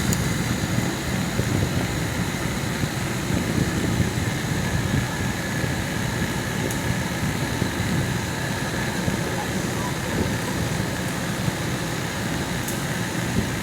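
TCL portable air conditioner running steadily: an even rush of fan air over a low hum.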